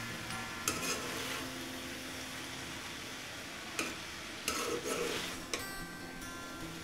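A spatula stirring and tossing pasta in a metal pan on the heat, over a steady sizzle, with a few sharp clinks of the spatula against the pan.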